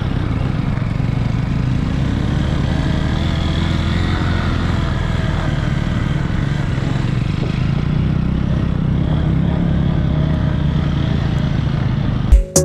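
Motor vehicle engine running steadily at an even speed. Music with a beat starts abruptly near the very end.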